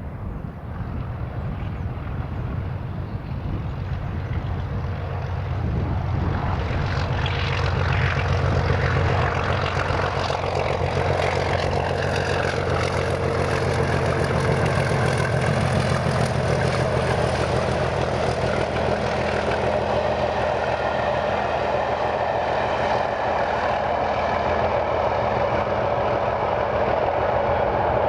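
English Electric Class 37 diesel locomotive with a turbocharged V12 engine working hard under load on an uphill climb. It gets louder over the first several seconds as it approaches, then holds steady and loud as it passes.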